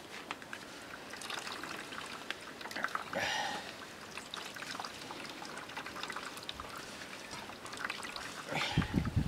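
Wet grains being rubbed and squeezed by hand in a plastic colander, with water trickling and dripping through into a plastic basin below, a louder splash about three seconds in. A low rumbling comes in near the end.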